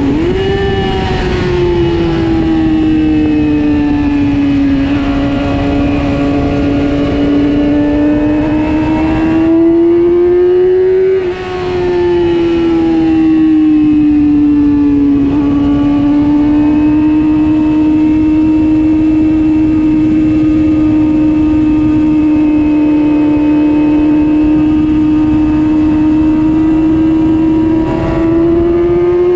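Onboard sound of a race motorcycle's engine held at high revs under a steady rush of wind noise. The engine note climbs for the first ten seconds or so, drops sharply after a brief dip in loudness about eleven seconds in, holds nearly level through a long corner, and rises again near the end as the bike speeds up.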